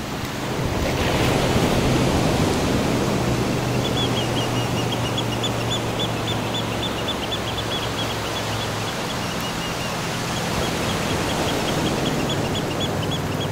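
Water rushing and splashing along the hull of a Sunfish sailboat under way, a steady wash that grows louder about a second in.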